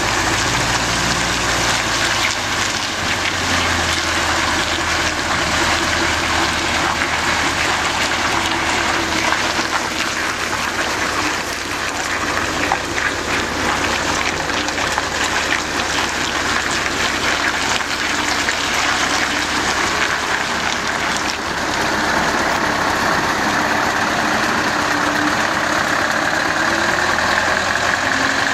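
Scania R580 timber truck's V8 diesel engine running steadily at idle.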